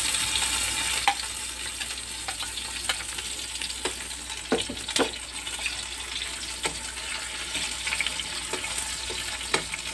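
Chopped tomatoes, garlic and onion sizzling in hot oil in a wok while a spatula stirs them, with scattered sharp clicks and scrapes of the spatula against the pan.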